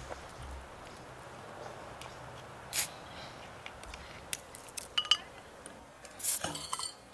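Dishes and metal utensils clinking and knocking: a handful of separate sharp strikes, one ringing briefly, and a quick cluster of knocks near the end, over a steady background hiss.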